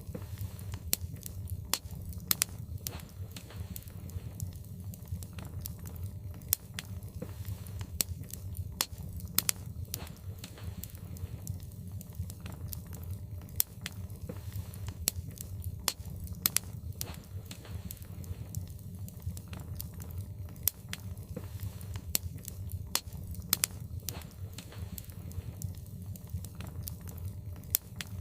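Logs burning in a fireplace, crackling with frequent sharp, irregular snaps and pops over a steady low rumble.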